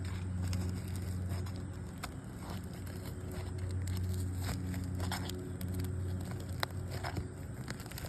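A roof snake being worked under 3-tab asphalt shingles to break their seal: scattered crackles, clicks and scrapes as the sealant lets go and the brittle shingles tear. A steady low hum runs underneath the whole time.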